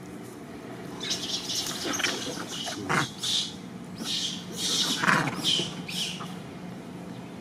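A run of short, high chirps and squeaks from animals, several a second, starting about a second in and dying away near the end.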